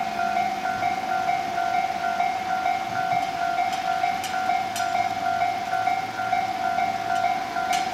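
Railway level-crossing alarm ringing in even electronic pulses, about two to three a second, with a few faint clicks about halfway through and again near the end.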